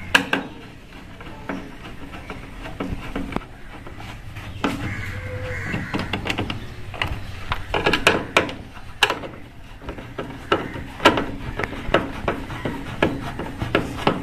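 Irregular clicks, taps and knocks of a screwdriver and plastic panel parts being handled as screws are taken out of a Whirlpool top-load washing machine's top panel, over a low steady hum.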